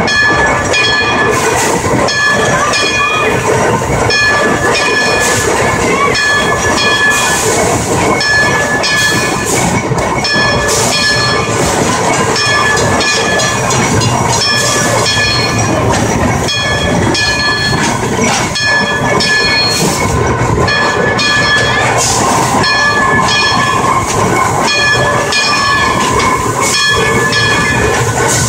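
Climax geared steam locomotive running, heard from on board: a steady rush of steam and working machinery, with a short metallic ringing that repeats every second or two.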